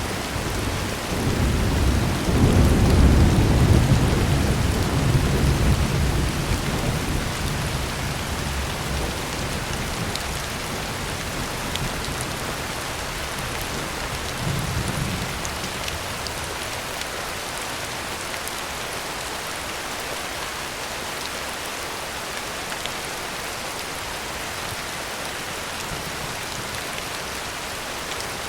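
Heavy rain falling on a tin roof, with a long roll of thunder that builds about two seconds in and fades out over several seconds. A shorter, fainter rumble of thunder comes about halfway through.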